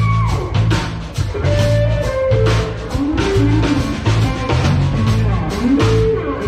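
Band music with guitar and drums over a steady beat, about two beats a second, with notes that slide in pitch.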